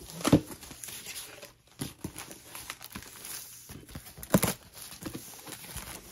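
Cardboard shipping box being opened: a utility knife slitting the packing tape, with tearing and rustling of tape and cardboard. Two sharp knocks, one just after the start and a louder one about four seconds in.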